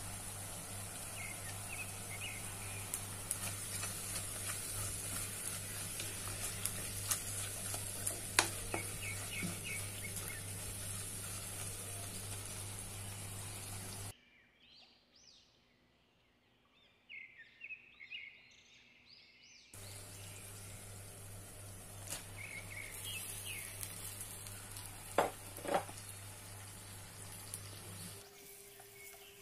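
Onion and spice masala sizzling in oil in a clay pot, stirred with a wooden spatula that clicks and scrapes against the pot. The sizzle drops out for several seconds about halfway through, then returns steady once the prawns are in the pot.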